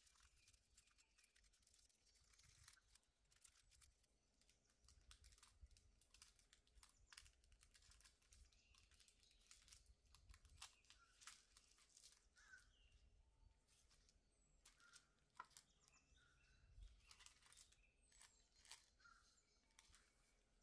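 Faint, irregular crinkling and crackling of thin nail transfer foil, pressed and rubbed onto a nail tip and peeled off by gloved fingertips.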